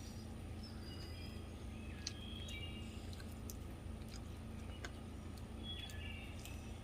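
Faint birds chirping in short high calls over a steady low hum, with a few soft clicks.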